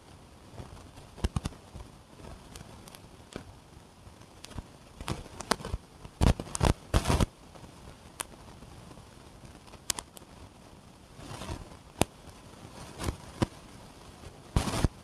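Irregular clicks, knocks and short rustling bursts of objects being handled, with no motor running.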